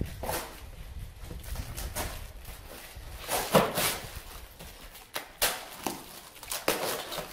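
A plastic-wrapped cardboard box being torn open by hand: irregular ripping and rustling of cardboard and plastic wrap, loudest about three and a half seconds in, with a few sharper tears later.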